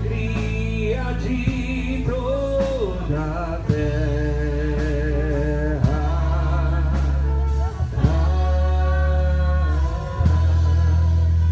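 Gospel music: a voice singing a melody with a wavering vibrato over a band with a heavy, steady bass.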